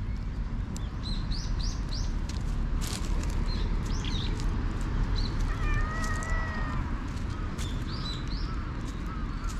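Black cat giving one long, wavering meow a little past the middle. Small birds chirp short calls throughout, with scattered clicks and rustles.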